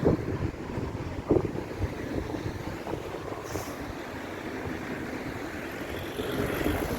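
Road traffic passing, a steady low rumble with wind buffeting the microphone.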